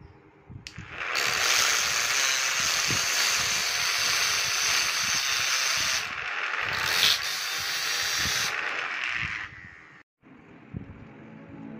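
Homemade grinder (a small 12-volt DC motor spinning a sandpaper-wrapped RC tyre) grinding a steel utility-knife blade: a loud, steady, harsh hiss. It starts about a second in, breaks briefly about six seconds in, and stops shortly before the end.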